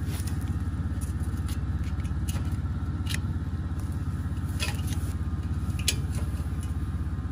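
An engine idling steadily, with a few sharp metal clicks as multi-tool pliers work a bolt on the metal frame of a deer ladder stand.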